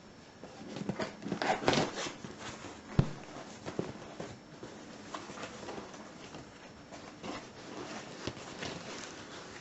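A large cardboard parcel being handled and opened: irregular rustling, scraping and clicking, busiest in the first couple of seconds, with one sharp knock about three seconds in.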